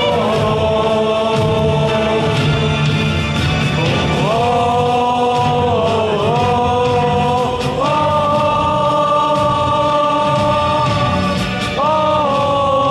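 Stadium cheer song: many fans singing along in long held notes over amplified music, the melody stepping to a new pitch every few seconds.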